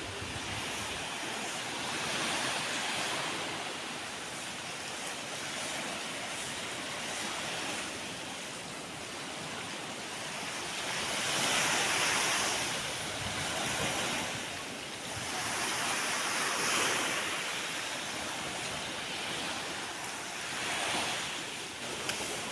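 Ocean surf: a continuous wash of breaking waves that swells louder every few seconds as each wave comes in, the biggest surge about halfway through.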